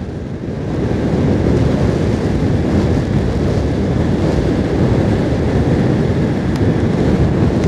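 Wind rushing over the microphone of a motorcycle on the move, with the bike's engine and road noise running underneath. The rush grows louder about half a second in, then holds steady.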